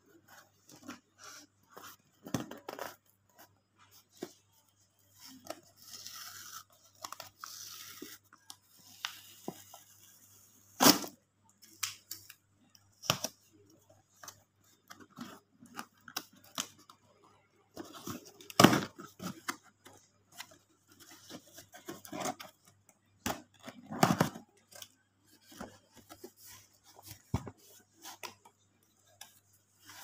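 A cardboard box being unpacked by hand. Scissors snip and a paper label and tape tear away, and the cardboard rustles, scrapes and knocks as the flaps are pulled open, with a few louder knocks among the smaller clicks.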